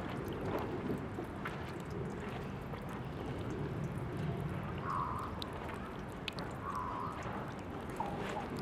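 Water running from the tap of a park drinking fountain, a steady splashing stream with fine drips, and two short higher-pitched blips about five and seven seconds in.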